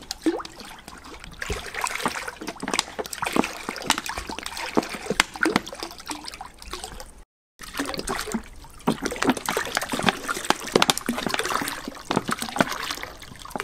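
Water pouring from a 2-litre plastic bottle into a kazan, splashing onto the bottom and then into the water already in it. The pouring breaks off in a brief gap just over halfway through.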